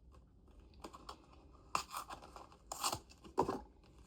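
Packaging and small accessories being handled: scattered light clicks with a few short crinkling, tearing rustles, the louder ones about two, three and three and a half seconds in.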